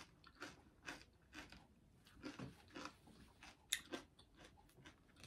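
A person chewing food: faint, short mouth clicks about twice a second.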